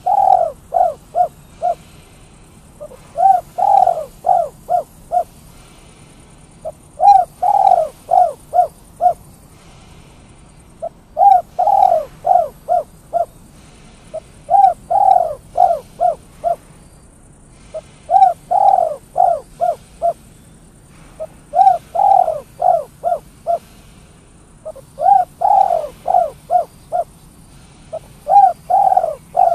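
Spotted dove (tekukur) cooing in the song style bird keepers call "kuk 3". It repeats the same phrase about every three and a half seconds, each a drawn-out coo followed by a quick run of short, clipped coos.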